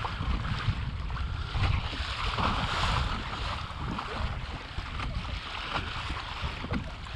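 Water splashing and rushing along the hull of a kayak moving through choppy sea, with wind buffeting the microphone.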